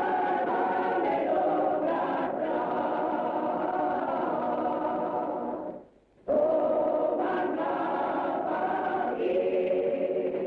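Choir singing long held chords as film music, breaking off briefly about six seconds in and then starting again, the chord moving lower near the end.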